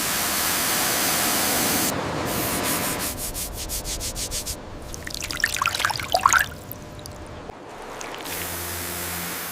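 Cleaning noises in quick succession: a hiss like spraying or running water, then a fast series of scraping or brushing strokes, about six a second, then a scatter of small clinks and drips. Faint low tones come in near the end.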